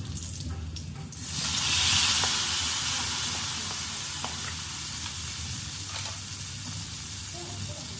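Chopped garlic and spring onion sizzling in hot oil in a nonstick wok, stirred with a wooden spatula that now and then ticks against the pan. The sizzle swells sharply about a second in, then slowly eases.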